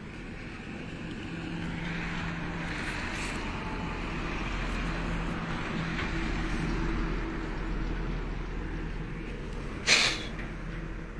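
Road traffic: a vehicle passes, its noise swelling over several seconds and then fading over a steady low engine hum. About ten seconds in comes one short, loud burst of noise.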